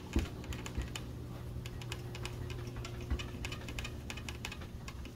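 1500-grit wet sandpaper rubbed by hand on a freshly painted Harley-Davidson fuel tank: a rapid, irregular patter of small scratchy clicks as the wet paper is worked in circles to cut down orange peel in the clear coat. A steady low hum runs underneath.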